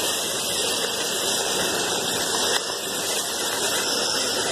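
Steady rushing of floodwater flowing along a street curb.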